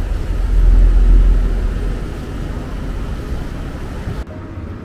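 Wind buffeting the microphone: a loud, uneven low rumble that swells in the first second or two and changes abruptly about four seconds in.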